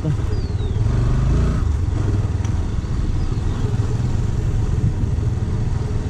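Motorcycle engine running steadily while riding on a rough dirt road, with a dense low rumble from wind and the bumpy surface.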